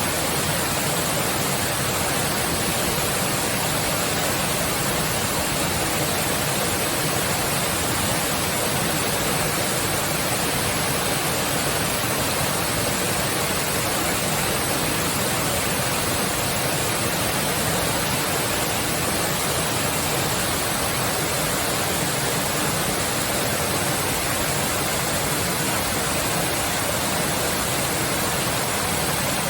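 A large waterfall with heavy flow, about ten metres high and falling in two tiers, pouring into its pool in a loud, steady rush of water.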